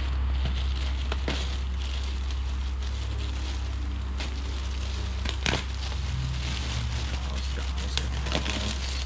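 Light rustling and crackling with a few sharp clicks, like something being handled, over a steady low hum.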